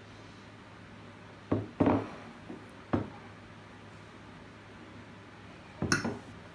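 A few short knocks and thumps, four of them spread across several seconds, over a steady low hum.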